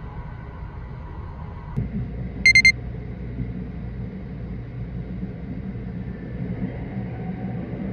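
Low running rumble of the Sunrise Express, a 285-series electric sleeper train, heard from inside the car. About two and a half seconds in come three quick, high electronic beeps, the loudest sound.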